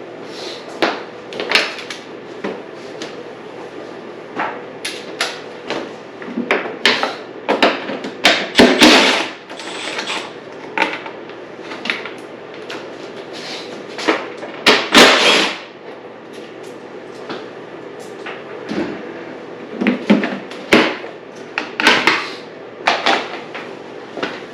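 Dirt bike plastic body panels and their bolts being worked off by hand: scattered knocks, clicks and rattles, with two longer scraping bursts about nine and fifteen seconds in.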